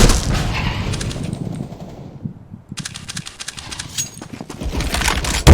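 Shooter video game sound effects: a dense mix of noise with a quick run of rapid sharp shots about three seconds in, and a loud bang right at the end.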